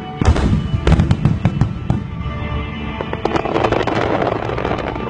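Fireworks bursting overhead: several sharp bangs in the first two seconds, then a dense crackling of many small reports. Music plays steadily underneath.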